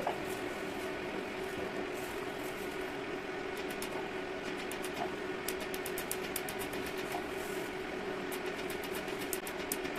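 PicoSure picosecond laser handpiece firing pulses onto the skin, a rapid, regular run of sharp clicks several a second over a steady hum. The clicks pause briefly about two seconds in and again near the end.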